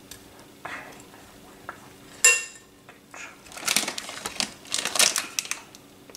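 A metal spoon clinks once against a glass bowl about two seconds in, ringing briefly, then scrapes and rustles through a bowlful of sultanas as some are spooned out.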